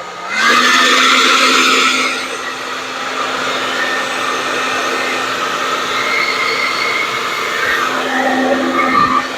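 Handheld blow dryer that dips right at the start, spins back up within half a second and runs steadily, blowing air over wet acrylic paint; it is louder for the first couple of seconds.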